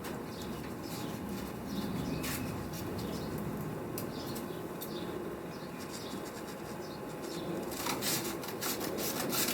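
Wet sandpaper rubbed by hand over a car's painted body panel, a steady scrubbing with scattered scratchy strokes that grow denser near the end: 1,000-grit wet sanding to dull the clear coat.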